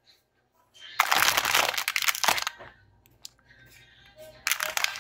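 Shiny plastic snack-chip bag crinkling as it is handled: a loud stretch of rustling about a second in, lasting about a second and a half, then a shorter burst near the end.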